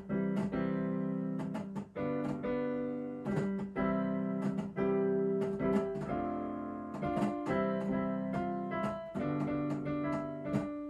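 Digital piano being played, its notes sounding with a sharp clicking from the keys each time a key is released. The owner puts the clicking down to worn keyboard felt.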